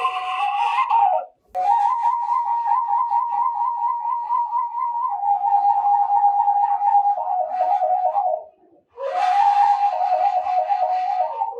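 Washint, the Ethiopian end-blown bamboo flute, playing a solo melody: held notes with a fast trembling ornament that step down to a lower note about five seconds in. Short breath pauses come after a second and again near the two-thirds mark, and the next phrase starts with a breathy attack.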